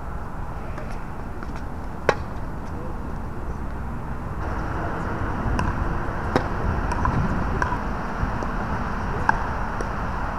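Tennis balls struck by rackets during doubles play: a few sharp pops, the loudest about two seconds in and others about six and nine seconds in, over a steady outdoor background rumble.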